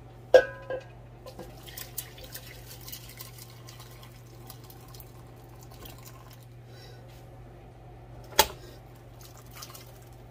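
Cooked kidney beans and their liquid being poured from a pressure cooker's pot into an enamelled cast-iron Dutch oven: liquid dripping and splashing with small patters of beans. A sharp ringing knock about half a second in and another loud knock near the end, the pots touching.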